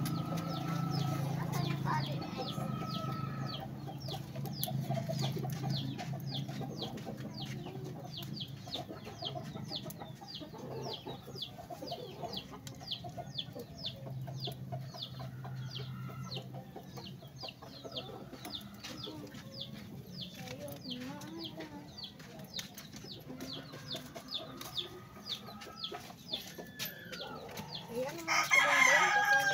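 Chickens clucking, with a loud crow-like call about two seconds before the end.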